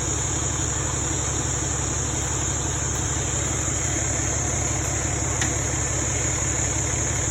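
A vehicle engine idling steadily with an even low rumble, under a steady high-pitched buzz.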